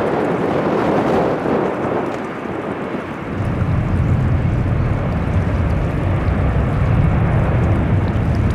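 Boeing 747-400 freighter's four jet engines running, a steady roar mixed with wind buffeting the microphone; a deep low rumble comes in about three seconds in and holds.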